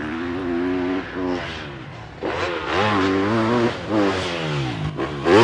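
Motocross bike engine revving, its pitch rising and falling again and again as the throttle is worked.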